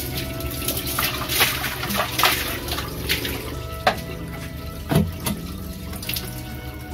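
Water from a plastic scoop pouring and splashing over a bare glass aquarium as it is rinsed out, in several separate splashes.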